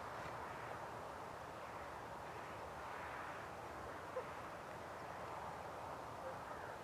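Faint, steady outdoor background noise with a single small tick about four seconds in.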